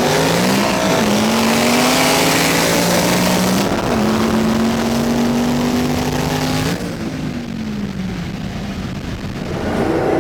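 Twin-turbo Ford Mustang V8 at full throttle, pulling through the gears with the engine note stepping down at upshifts about a second in and near four seconds in. Near seven seconds in the throttle comes off and the engine note falls away.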